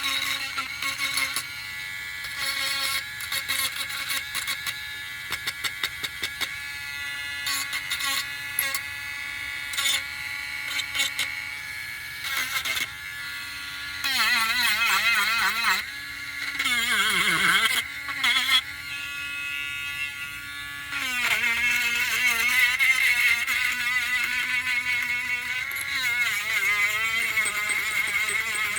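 Small electric sanding tool running, its motor pitch wavering and dipping repeatedly as it is pressed against the work, with scattered clicks and knocks in the first half.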